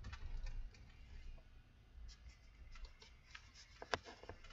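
Quiet scattered light clicks and taps at no even rhythm, with one sharper click near the end, over a low rumble that fades after the first second.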